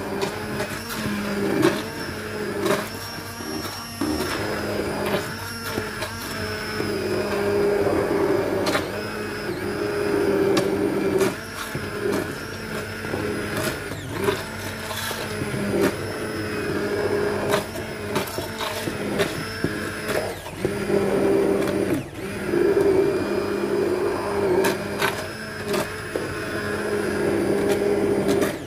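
Electric immersion blender running in a pot of chunky potato and broccoli soup, puréeing it smooth: a steady motor hum with frequent short knocks and brief dips in level.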